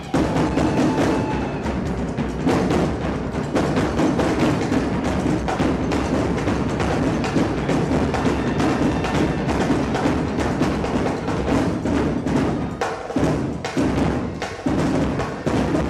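Drum squad playing a fast, steady percussion cadence on marching drums to accompany a drill team routine.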